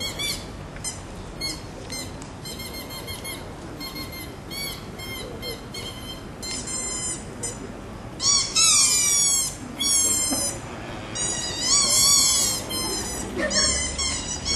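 Bird calls: a quick run of high, short chirps, then from about eight seconds in several louder sweeping calls that slide down and up in pitch.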